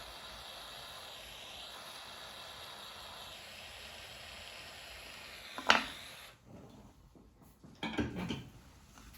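Soldering torch flame hissing steadily, then a sharp pop at about six seconds as the hiss cuts off. A few light clinks and knocks of small metal tools or the piece follow near the end.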